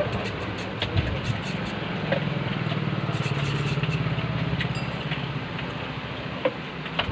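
Coil winding machine spinning as copper wire is wound onto a mixer-grinder field coil former: a steady, fast rattle that grows louder about two seconds in and eases off toward the end, with a few sharp clicks.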